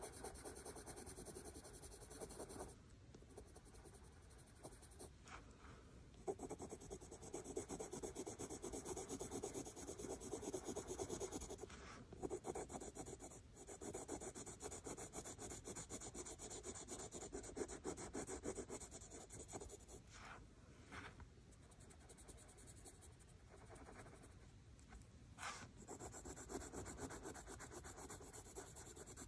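Prismacolor yellow ochre coloured pencil scratching over textured Canson cartridge paper in dense shading strokes at medium pressure, faint, stopping briefly a few times.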